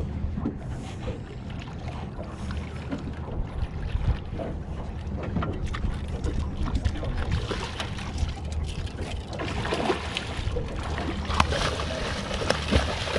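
A hooked steelhead thrashing and splashing at the surface beside a boat, the splashes coming more often and louder in the second half, over the steady low hum of the boat's motor running.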